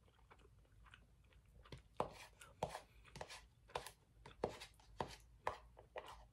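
Metal spoon knocking and scraping against the inside of an instant-noodle cup while stirring the noodles: a run of sharp taps, about two a second, starting a couple of seconds in.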